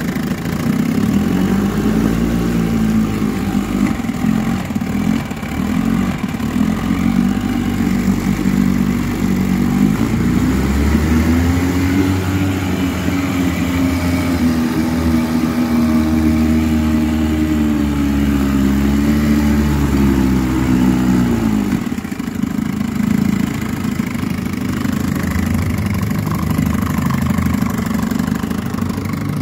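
1960 Johnson 10 hp Sea-Horse two-stroke twin outboard running in a test barrel of water. About ten seconds in it is throttled up: the engine pitch rises and holds while the propeller churns the water hard. Roughly two-thirds of the way through it drops back to idle.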